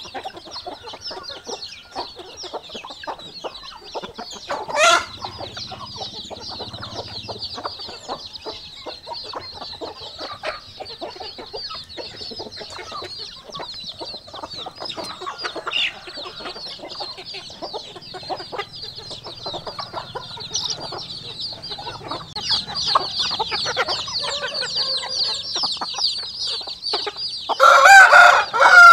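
A brood of chicks peeping constantly in rapid, high cheeps. A sharp rising call comes about five seconds in, and a louder, fuller chicken call comes near the end.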